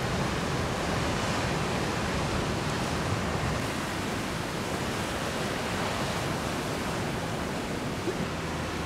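Ocean surf and wind as one steady, even rushing hiss, with no distinct events.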